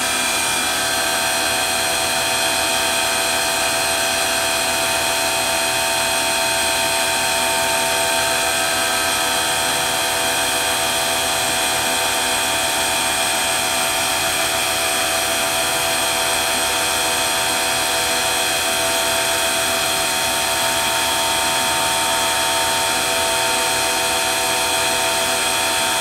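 Citizen B12 CNC Swiss-type lathe running its main spindle at speed with the synchronized rotary guide bushing turning: a steady whine of many held tones over a mechanical hum.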